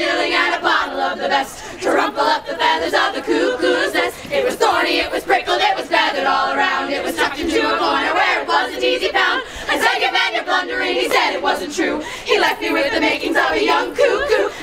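A women's a cappella group singing together, unaccompanied.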